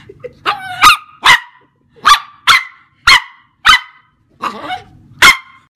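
A dog barking: a run of about nine short, sharp barks at uneven gaps of roughly half a second.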